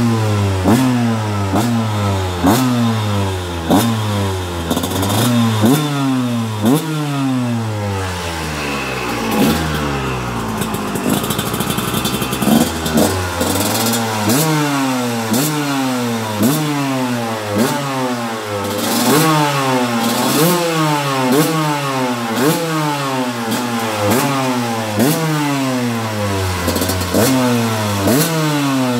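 GasGas 125 two-stroke dirt bike engine being revved in quick throttle blips, about one a second, the pitch rising and falling each time. About nine seconds in it drops back to low revs for a few seconds, then the blipping starts again.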